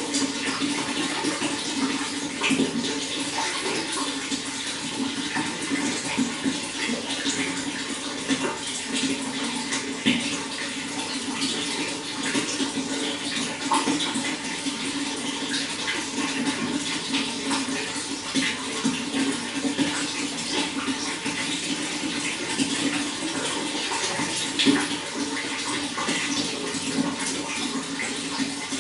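Running water flowing steadily, with a continuous rush and many small, irregular splashes and drips.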